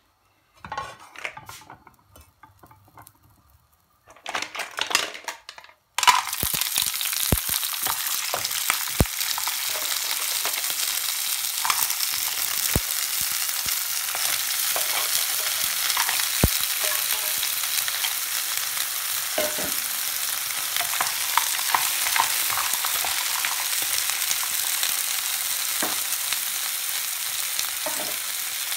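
Frozen mussels in their shells going into a hot oiled frying pan: after a few brief handling noises, a loud steady sizzle starts suddenly about six seconds in, with sharp clicks of shells knocking against the pan as they are placed.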